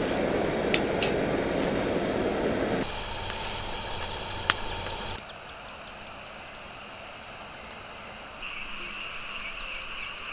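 Wood campfire burning with a crackling hiss, with one sharp pop about four and a half seconds in. The sound then drops to quiet evening woodland ambience, and over the last two seconds an insect trills steadily in a high, unbroken tone.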